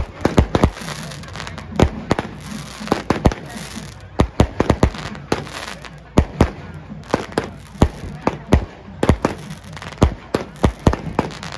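Firecrackers going off in an irregular run of sharp bangs, a few a second, some in quick clusters.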